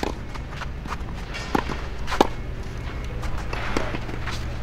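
Tennis rally: sharp pops of rackets striking the ball and the ball bouncing, a few in irregular succession, the loudest about two seconds in, with players' shoes moving on the court.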